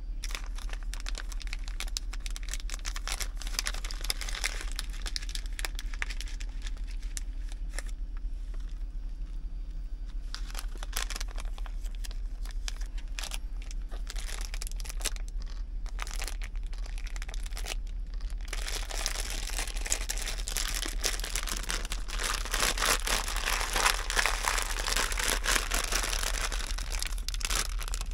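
Crinkling and rustling from handling, with scattered small clicks, over a faint steady hum. About two-thirds of the way in the rustling becomes denser and louder.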